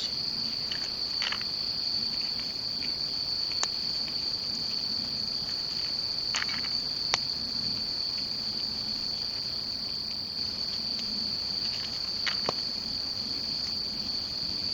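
Crickets chirring in a steady high-pitched drone, with a few sharp clicks scattered through, the loudest about seven seconds in.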